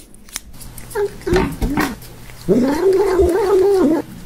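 Two sharp clicks near the start, then a long-haired cat's growly moaning calls while it eats a lickable treat from a tube: a few short bending calls, then one long call of about a second and a half. This is the grumbling of a hungry, 'hangry' cat at its food.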